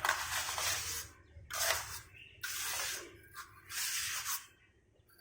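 Repeated scraping strokes, about five, each under a second, with short gaps between them.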